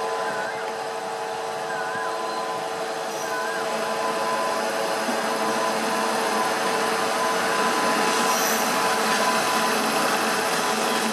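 WAG-9 three-phase electric freight locomotive passing slowly, giving a steady whine of several tones from its electrical equipment over the rumble of its wheels on the rails. The rolling noise grows louder as the loaded BOXN coal wagons follow.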